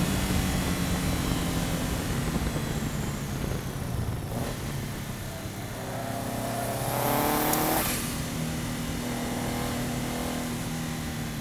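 Subaru Impreza's flat-four boxer engine running at speed under load, with wind and road noise on the bumper-mounted camera. About two-thirds of the way in, the revs climb and then drop away sharply.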